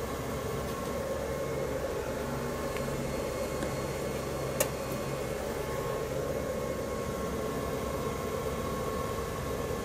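Steady fan-like hum and hiss, with one sharp click about four and a half seconds in as the electric rice cooker's cook switch is pressed down. The click switches its heater on, taking the load from about 53 W to about 660 W.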